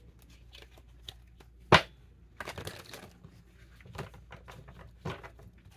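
Small handling sounds: one sharp click or tap just under two seconds in, then a short rustle like paper or cards being moved, and a few lighter taps.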